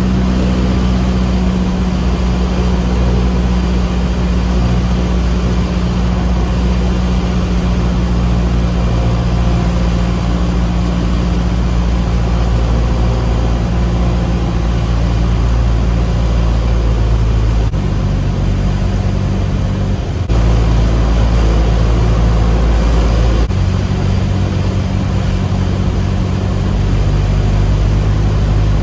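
Steady cockpit drone of a single-engine light aircraft's piston engine and propeller in flight. Its note shifts a few times about two-thirds of the way through, and it is slightly louder after that.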